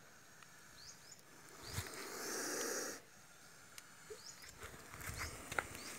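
Indian spectacled cobra hissing once, a long breathy hiss of a little over a second starting about two seconds in, given with its hood spread in a defensive display.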